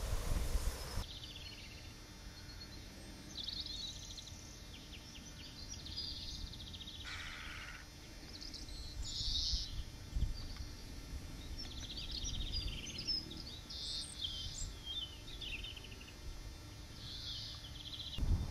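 Several songbirds singing over marshland: a busy run of short, varied chirps, trills and quick whistles, with one call sweeping downward about seven seconds in. A low rumble of background noise runs underneath.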